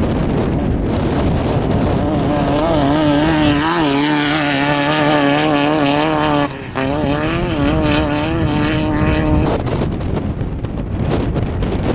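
VW Beetle race car's air-cooled flat-four engine running hard as it passes close by, its note wavering as the car bounces over rough ground, with a short break in the note about two-thirds of the way through. Wind buffets the microphone throughout.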